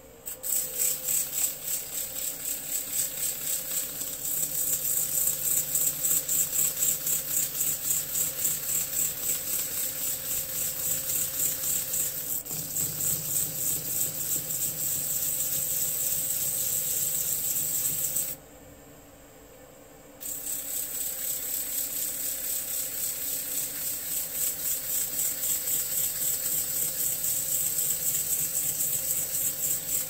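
Abrasive sanding pad pressed against a hazel wood box spinning on a wood lathe: a rapid, pulsing rasp over the lathe's steady hum. The sanding stops for about two seconds a little past the middle, then resumes.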